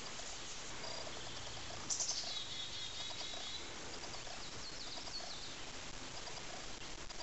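A wild bird calling: one loud call sliding downward about two seconds in, then a few short high chirps around five seconds in, over a steady outdoor hiss.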